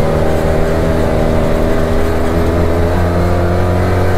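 Arctic Cat Wildcat Trail's 700cc parallel-twin engine running at a fairly steady speed while the side-by-side drives along.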